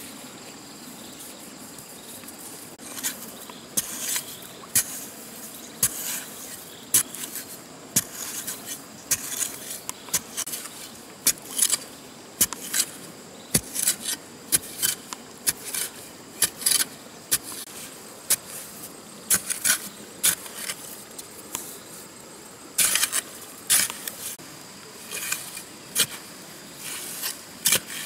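A metal-bladed digging tool on a long wooden handle stabbing and scraping into wet, sandy mud. The strokes come in an uneven run, starting a few seconds in and often more than one a second.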